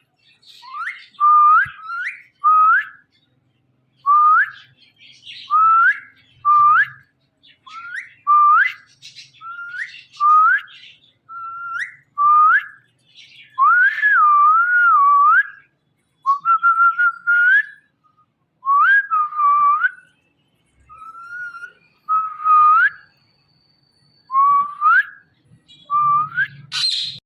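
Indian ringneck parrot whistling: a long series of short, pure whistled notes, about one a second. Most rise sharply in pitch, and a few waver up and down.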